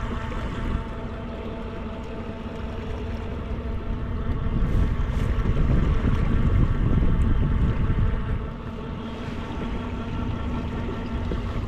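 Electric motor of an Old Town ePDL+ pedal drive whining steadily as it pushes the kayak along, over a low rush of water and wind that grows heavier between about four and eight seconds in.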